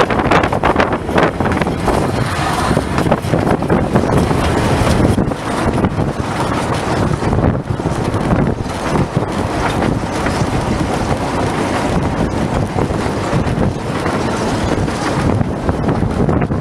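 La Trochita's 750 mm narrow-gauge wooden passenger coaches running along the track, a steady loud rumble and rattle of wheels and couplings, with wind buffeting the microphone.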